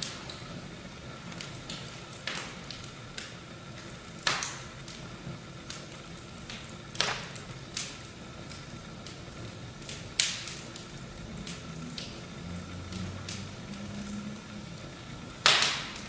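Fire crackling in a fireplace: a steady hiss with scattered small snaps and a few louder pops every few seconds, the loudest near the end.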